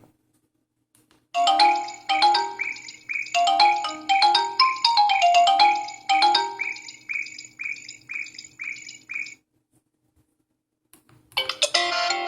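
Default ringtones of a Sigma X-Style S3500 sKai phone. After a click, a bright ringtone of quick mallet-like notes with short chirping slides plays for about eight seconds and stops. After a silent gap of about two seconds, the next, fuller ringtone begins near the end.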